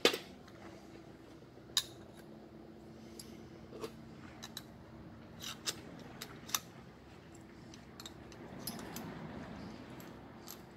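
Small metal axle parts for an RC truck clinking and knocking as a steel shaft with its bearing and gear is fitted into a metal axle housing by hand: a sharp knock at the start, then scattered light clicks, and a longer scraping rub near the end. A faint steady hum runs underneath.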